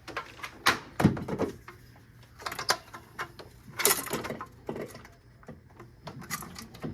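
A series of sharp knocks and clinks, about eight in all, spread unevenly over several seconds, from parts and tools being handled during engine work.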